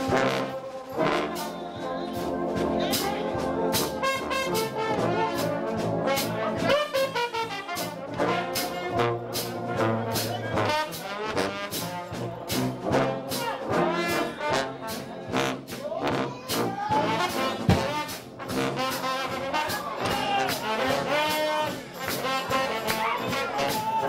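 A trombone-led brass shout band of the United House of Prayer playing live. A massed trombone section, with trumpet and sousaphone bass, plays over a steady percussive beat.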